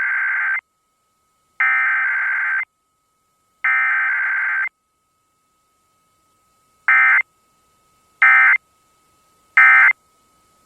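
Emergency Alert System SAME digital data bursts, the harsh two-tone modem screech: three header bursts of about a second each, two seconds apart, then three short end-of-message bursts, with no attention tone between them. A faint steady tone runs underneath throughout.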